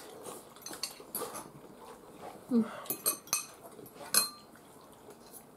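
Metal forks clinking and scraping against glass bowls and a metal baking tray as food is scooped up and eaten, with a few sharp clinks in the middle.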